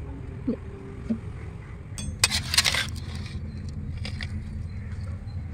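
A metal serving spoon clinking and scraping against a steel pot, loudest about two seconds in, with a smaller clink near the end, over a steady low rumble of outdoor background noise.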